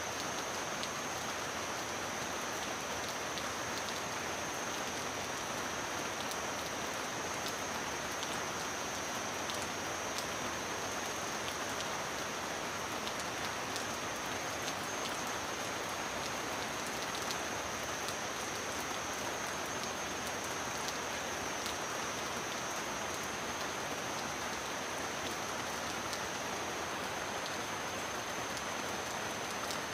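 Steady heavy rain falling on a metal roof: an even hiss of drops with scattered sharper ticks and a thin steady high tone beneath.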